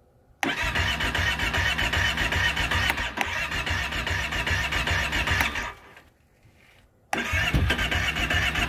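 Kawasaki Brute Force 650i ATV's electric starter cranking its V-twin engine, which turns over in a steady rhythm without catching: one crank of about five seconds, then after a short pause a second crank begins. The engine will not start.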